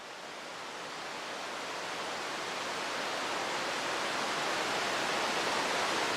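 Rushing water of a small waterfall, a steady hiss that fades in and grows louder.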